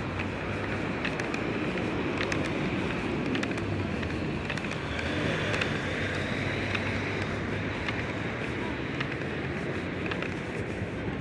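Busy city street ambience: steady traffic noise from cars and buses, with the clicks of pedestrians' footsteps close by.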